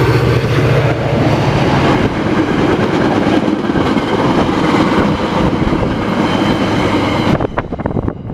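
A Metra diesel commuter train passing close by: the locomotive's engine gives a steady low hum for the first couple of seconds, then the bilevel coaches roll past with a steady rumble. Near the end the rumble drops and the wheels click over rail joints.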